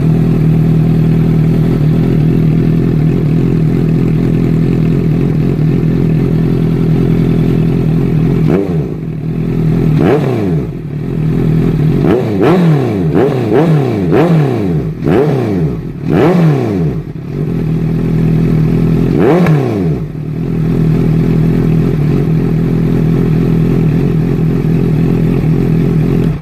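Honda CBR650F's inline-four engine through a custom exhaust pipe and aftermarket slip-on muffler, idling steadily, then revved in a run of about a dozen quick throttle blips, each rising and falling in pitch, before settling back to a steady idle. The sound cuts off suddenly at the very end.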